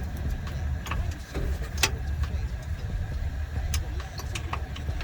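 A car engine idles with a steady low hum. Hand tools on the brake parts give several sharp metallic clinks and knocks at irregular times.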